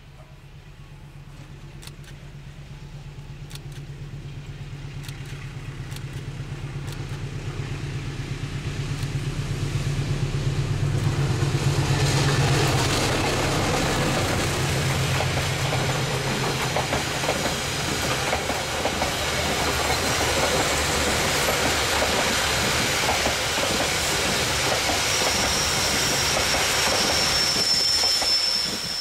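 A diesel-hauled Indonesian passenger train with business-class carriages approaches and passes at speed. A low engine drone grows louder for about the first twelve seconds, then gives way to a steady loud rush of carriages rolling by with wheel clatter over the rail joints. A thin high squeal comes in near the end.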